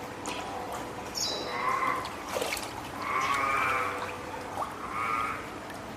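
Spotted seal pup, about three weeks old and hand-reared, crying loudly three times: a short call, a longer drawn-out one, then another short one. It is a pup calling out, perhaps hungry or wanting to come onto land, as if calling its keeper.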